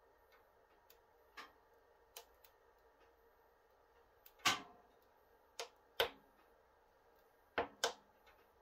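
Kuma wood stove burning on glowing coals behind its closed glass door, giving off several sharp, irregular pops and ticks, some in quick pairs.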